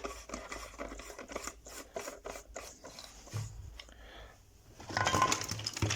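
Close handling noises, rubbing and scraping with a run of small clicks, and a louder rasp about five seconds in.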